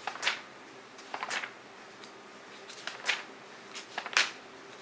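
Magazine pages being turned and handled: four short papery swishes, about a second or so apart.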